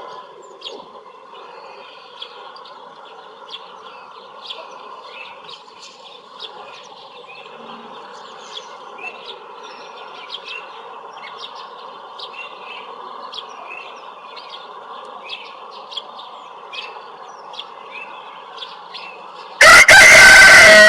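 Rooster crowing once, very loud, starting near the end, its call dropping in pitch as it trails off. Before it, a steady farmyard background with frequent short bird chirps.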